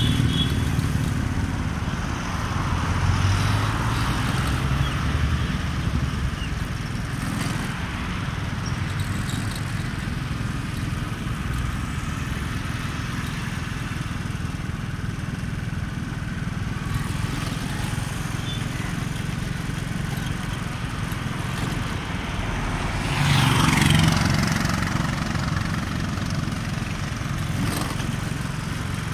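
A small vehicle engine running steadily at low speed, with road and wind noise. About 23 seconds in, a passing vehicle swells louder and fades, its pitch falling.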